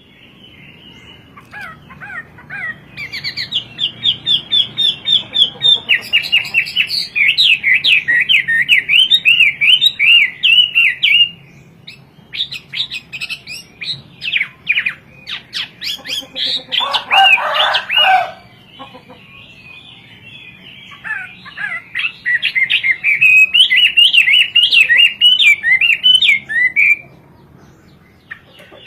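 Chinese hwamei singing loud, varied phrases of rapid whistled notes, some repeated in quick runs and some sweeping up and down, broken by short pauses between phrases.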